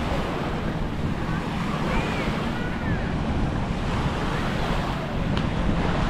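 Small sea waves washing onto a sandy beach, with wind buffeting the microphone and faint distant voices of bathers.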